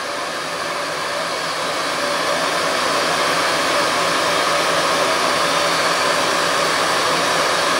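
Solder-fume extractor fan running, a steady rushing of air drawn through its hose. It grows a little louder over the first few seconds, then holds steady.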